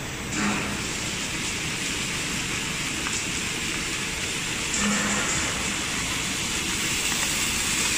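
Jumbo roll slitting machine running, drawing a web of abrasive cloth off the jumbo roll through its rollers: a steady hiss, with a brief low hum about half a second in and again about five seconds in.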